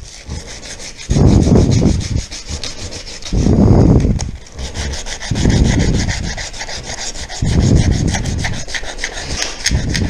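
Sandpaper rubbed by hand in quick back-and-forth strokes over a two-stroke motorcycle crankshaft, scouring rust and dirt off the steel. Louder dull handling rumbles come every two seconds or so.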